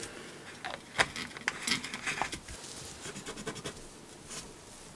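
Small tool scratching and rubbing sticker residue off the top of a chip on a circuit board. There is a sharp click about a second in, a run of scratchy strokes just after, and lighter, quicker strokes later.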